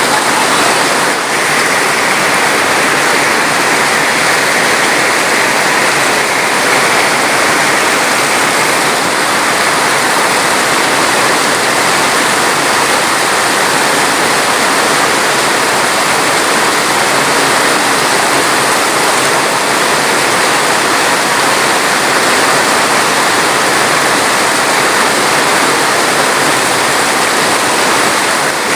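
Rushing water, a loud, steady hiss with no separate splashes or drops standing out.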